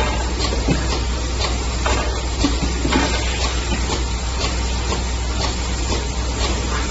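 Automatic cap O-ring assembly machine and its conveyor belt running: a steady mechanical hum and hiss with faint, even clicks about twice a second.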